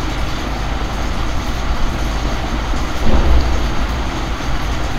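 Steady, loud background rumble and hiss, with a brief louder low rumble about three seconds in.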